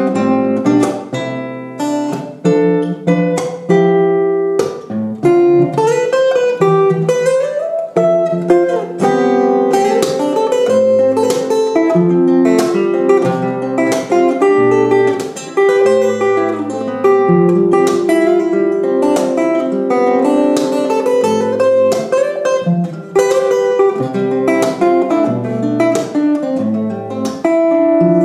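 Solo steel-string acoustic guitar played fingerstyle: plucked melody notes over bass notes and ringing chords.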